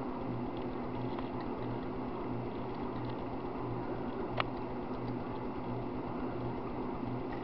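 Soldering gun humming steadily with a low electrical buzz while two wire leads are soldered to a micro switch, with one faint sharp click about four and a half seconds in.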